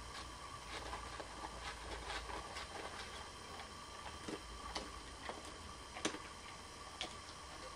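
Dog eating: irregular small clicks and smacks of chewing, one louder click about six seconds in.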